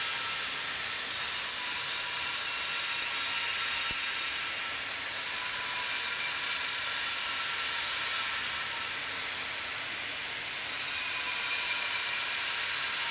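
Flux-cored arc welding on steel plate, giving a steady hiss, mixed with an angle grinder grinding the steel weld seam. The sound thins out about five seconds in and fills back in near the end.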